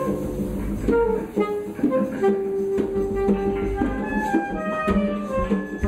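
Live free-jazz improvisation on electric guitar and drum kit. Scattered drum and cymbal hits sit under wandering melodic lines, with one note held for about a second and a half near the middle.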